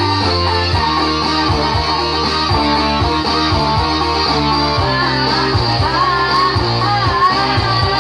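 Music with guitar over a steady bass line. A wavering melody line comes in about five seconds in.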